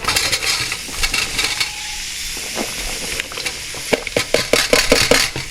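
Garlic and onions sizzling in hot olive oil in a wok, a steady frying hiss. From about halfway through, a quick run of clicks and clatter from the food being tipped in and stirred against the pan.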